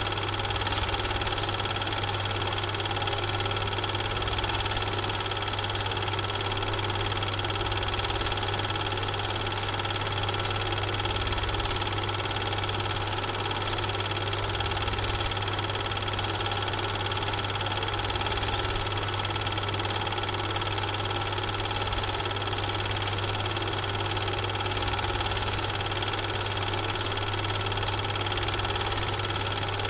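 Steady mechanical hum and whir with a constant low drone and hiss, unchanging across the picture cuts: running noise from the transfer of the silent Super 8 film, not sound from the railway scene.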